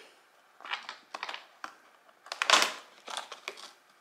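Cardboard advent-calendar door being pushed in and torn open along its perforation: a few short crunching, crinkling bursts, the loudest about two and a half seconds in.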